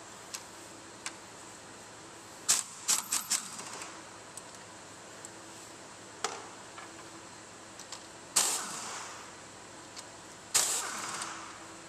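Ratchet, socket and extension clinking against metal bolts and brackets in an engine bay: scattered sharp metallic clicks, with a quick run of four or five about a third of the way in and two louder clanks in the second half that each ring briefly.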